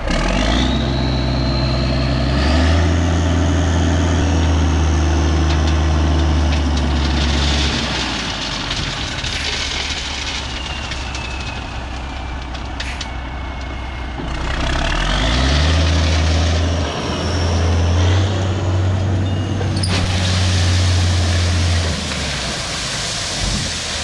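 Diesel dump truck engine revving up about a second in and again around fifteen seconds in, holding high for several seconds each time while the bed tips and spreads gravel. A rushing hiss of gravel pouring out of the raised bed fills the last few seconds.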